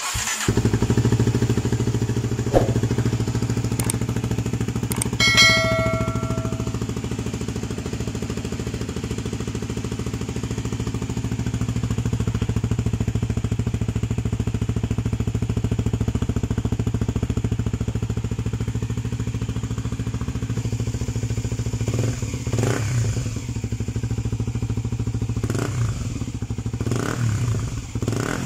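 Kawasaki Z250 SL single-cylinder engine starting up and idling through a Vmax aftermarket muffler with its silencer insert fitted, then several quick throttle blips near the end. A brief high-pitched tone sounds about five seconds in.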